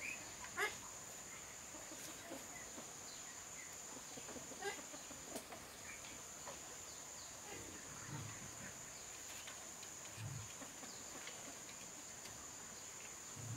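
Farmyard ambience: chickens clucking in short scattered calls over a steady, high insect drone, with two brief low calls from livestock about eight and ten seconds in.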